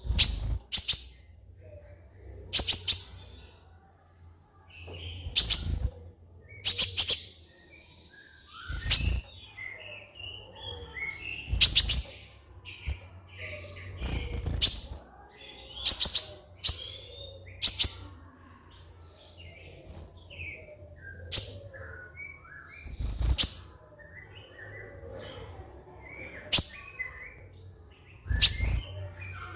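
Kolibri ninja sunbird calling: sharp, high-pitched chips every second or two, with softer twittering between them.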